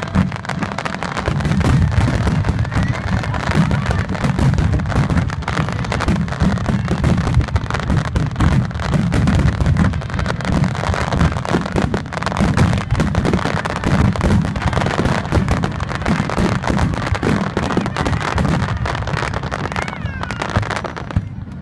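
Fireworks finale barrage: loud, dense, continuous bursts of aerial shells, the booms and crackles overlapping with no gaps.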